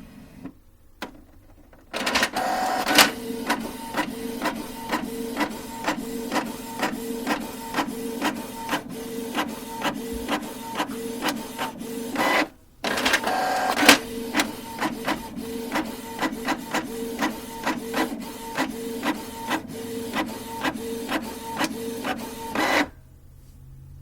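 Printer running a print job: a steady mechanical hum with regular clicks about twice a second. It stops briefly about halfway, starts again, and stops near the end.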